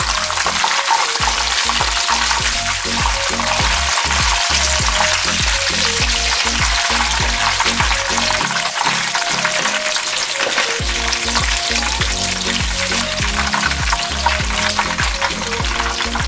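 Turmeric-marinated, pre-cooked chicken pieces frying in hot oil in a pan: a dense, steady crackling sizzle as they brown in the final frying step. Background music plays underneath.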